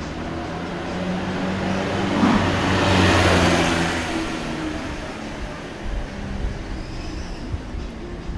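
A car driving past, its engine hum and tyre noise growing to a peak about three seconds in, then fading away.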